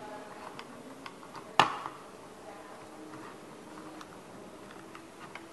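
Light clicks and taps of hands handling jumper wires and a battery connector on a plywood robot chassis, with one sharp click about one and a half seconds in.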